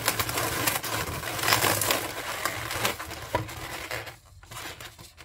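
Latex modelling balloons rubbing and scraping against each other as a 260 balloon is pushed down through the loops of a balloon figure, a busy run of rubbing that dies away about four seconds in.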